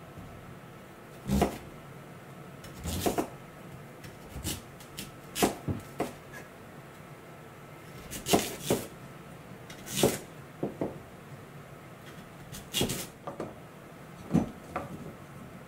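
Kitchen knife cutting through a raw sweet potato and knocking down onto a wooden cutting board: about a dozen sharp chops at an uneven pace, some in quick pairs.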